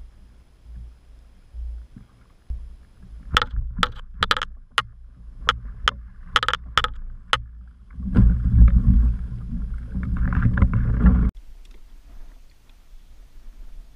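Cast net being hauled up onto a kayak: a run of sharp clacks and knocks as it comes in, then about three seconds of loud splashing and sloshing water as the wet net and its load of pilchards come aboard, cut off suddenly.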